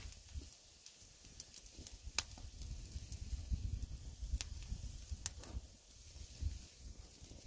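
Wood campfire crackling, with scattered sharp pops, a few of them loud, over a steady low rumble.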